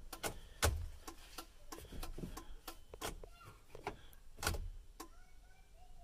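Turn-signal ticking in a Chevy truck's cab with the left signal switched on: a string of soft clicks, with two louder knocks about half a second in and about four and a half seconds in. The left signal blinks only some of the time, a fault the owner puts down to the flasher relay.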